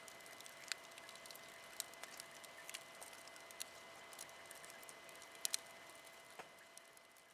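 Wood fire crackling faintly, with irregular small pops and snaps over a soft hiss.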